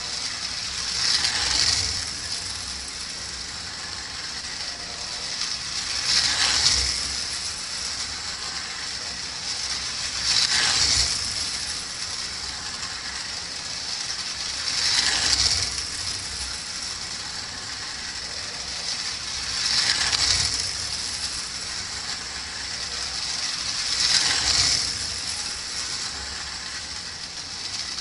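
Marx Commodore Vanderbilt tinplate toy train running laps of a small loop of tinplate track, its motor and wheels clattering steadily. The sound swells each time it passes close, six times about every four and a half seconds.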